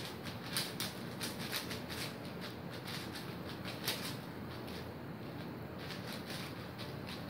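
Quick, irregular clicking and clacking of a magnetic 5x5 speedcube, a Cubicle WuShuang, as its layers are turned at speed during a timed solve.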